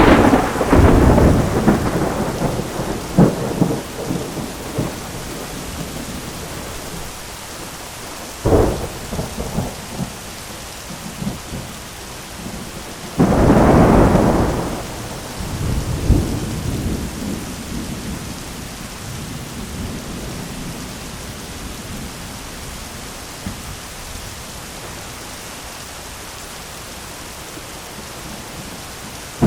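Heavy rain falling steadily on an umbrella, with thunder: crackling claps at the start, a sharp crack about eight seconds in, and a loud clap about thirteen seconds in that rumbles on for a couple of seconds.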